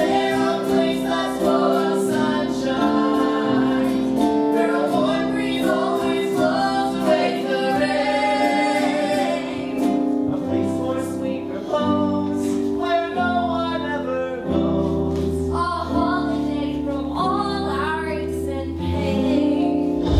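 A song from a stage musical: several voices singing together over instrumental accompaniment that holds steady chords.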